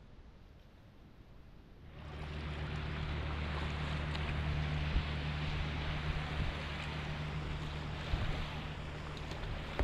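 Fast river water rushing around a kayak as it paddles through moving current, with wind rumbling on the camera microphone. The rushing comes up about two seconds in and then stays steady, with a few short knocks from the paddle strokes.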